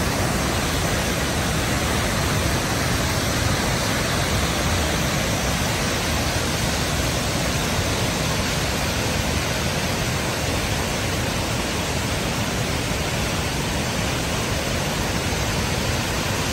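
The Paterson Great Falls of the Passaic River, a wide waterfall in heavy flow, pouring over its rock ledges: a constant, even rush of falling water.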